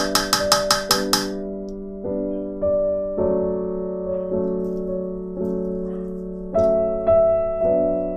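Background piano music playing slow, sustained chords. In the first second or so a quick run of about eight sharp, bright strikes sounds over it.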